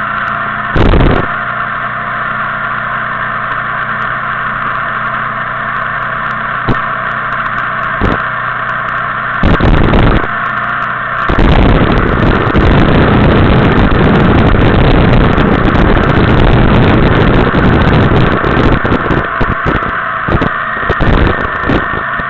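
Motorcycle riding at speed with a steady engine drone, while wind buffets the bike-mounted camera's microphone: a couple of short rumbling blasts at first, then rough, almost continuous buffeting from about halfway through.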